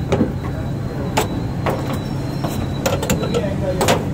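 Metal knocks and clicks of a hand-held sandwich toaster being clamped shut and set down on a gas stove's grate, about half a dozen sharp strikes spread over a few seconds, over a steady low background rumble.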